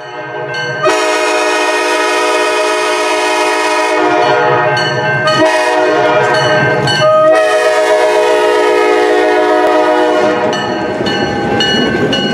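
Diesel locomotive horn blowing a long blast, then more blasts with brief breaks, over the engine's rumble as the train approaches. About ten seconds in the horn stops and the rumble and wheel-on-rail noise of the passing train take over.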